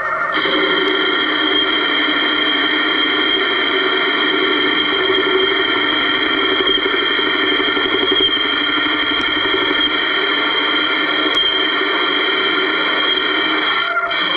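Homemade benchtop metal lathe, driven by a brushless sewing-machine motor through a belt, running under load while a boring bar cuts inside the spinning workpiece: a steady, high-pitched whine with the hiss of the cut. The higher tones drop out briefly near the end.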